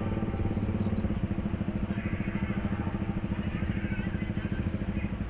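An engine running steadily with a rapid, even low throb.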